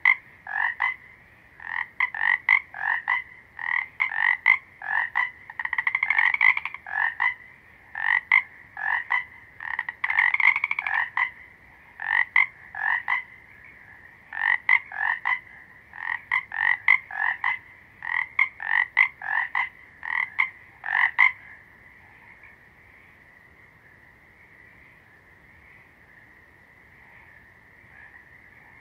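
Frogs croaking in a regular run of short calls, one or two a second. The calls stop about three-quarters of the way through, leaving a faint steady high drone of more distant calling.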